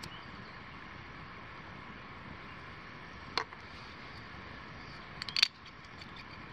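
Screw cap of a wine bottle being twisted open: a single click a little past halfway, then a quick run of clicks ending in a sharper snap near the end as the cap's seal breaks.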